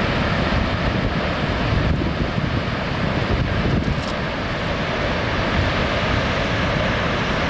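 Palouse Falls: a loud, steady rush of falling water, heaviest in the low rumble.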